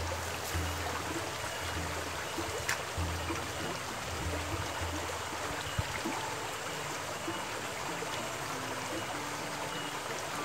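Small mountain stream running fast over rocky riffles: a steady rush of water, with faint background music over it.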